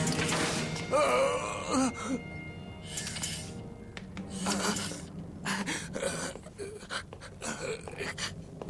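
Background score music with a character's gasps and heavy breathing, the loudest gasp about a second in.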